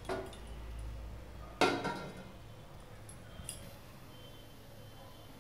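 Stainless-steel lid set down onto a stainless-steel sauté pan: one loud metallic clink with a short ring about a second and a half in, after a lighter tap at the start and followed by a faint click.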